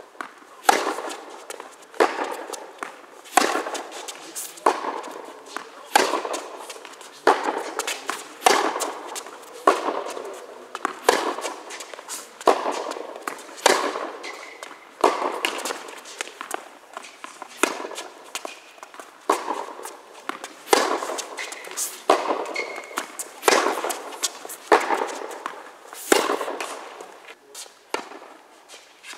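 Tennis rally: racquets striking the ball, with the ball bouncing on the hard court, giving a steady run of sharp pops about every second and a quarter. Each hit echoes in the big indoor hall.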